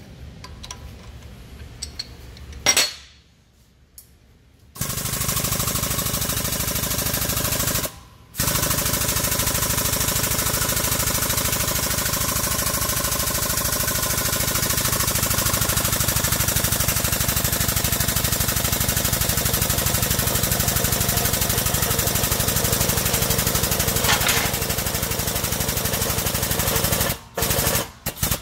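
Air-over-hydraulic shop press pump running with a loud, rapid chatter while the ram presses a bearing and retaining collar onto an axle shaft. It starts about five seconds in after a brief burst, pauses for a moment near eight seconds, and stops shortly before the end.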